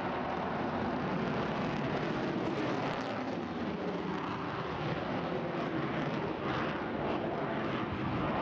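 Aircraft engine noise, loud and steady, cutting off suddenly at the very end.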